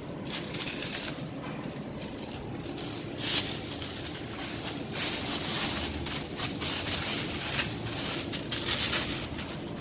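Plastic piping bag crinkling and rustling as it is handled and opened with gloved hands, a string of irregular crackles that grows busier a few seconds in.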